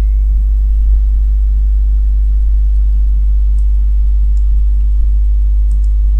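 Steady low electrical hum, a mains-frequency buzz in the recording, with a few faint short clicks scattered through it.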